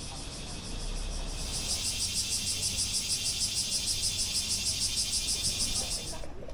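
A cicada singing: a high buzz pulsing about six times a second, which swells about a second and a half in and cuts off suddenly near the end.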